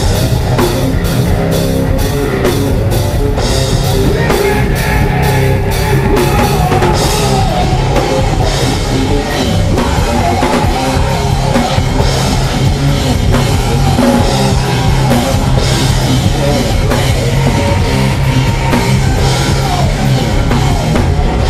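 Rock band playing live: electric guitar, bass guitar and drum kit, loud and driving. Regular drum and cymbal hits run thick through the first seven seconds or so, and then the pattern changes.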